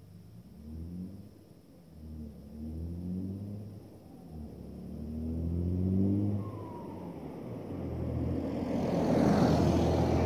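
Straight-piped 3.0 TDI V6 turbodiesel car accelerating, its exhaust note rising in pitch three times with a drop at each gear change. It then grows steadily louder as it comes close by.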